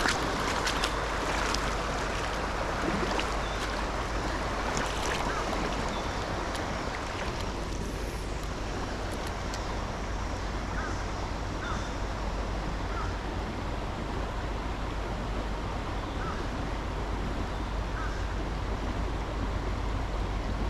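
Steady rushing of river water with wind buffeting the microphone, and a few light clicks in the first few seconds.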